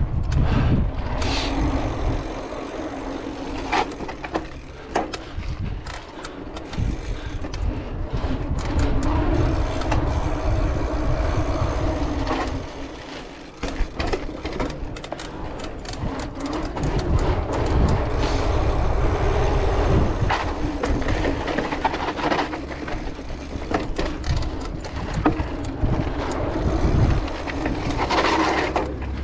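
Cross-country mountain bike riding over tiled and stone paving: a low rumble of tyres and wind with frequent clicks and rattles from the bike over bumps. The rumble dips briefly about halfway through.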